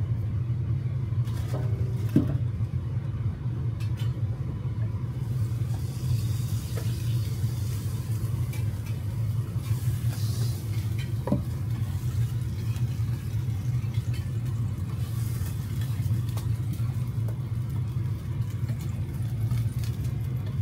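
Steady low rumble of kitchen equipment at a dorayaki griddle, with faint sizzling of batter cooking on the hot plate. A few light knocks of the lid and utensils come through it.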